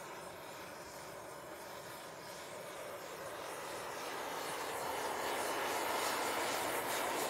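Gas brazing torch flame rushing steadily as it is played over a cast iron stove plate during brazing, growing louder from about four seconds in.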